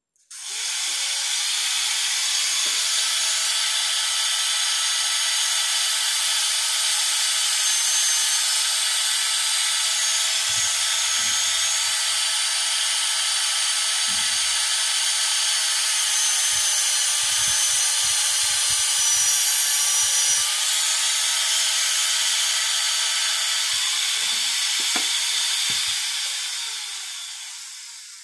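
Low-speed dental contra-angle handpiece spinning a size 6 Peeso reamer, drilling steadily into a tooth's root canal to clear out gutta-percha and widen the post space; a high-pitched whine that starts about half a second in and spins down near the end.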